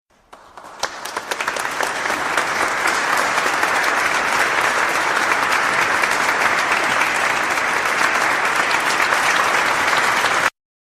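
Crowd applauding: a few scattered claps swell into steady, dense applause within about two seconds, then it cuts off abruptly near the end.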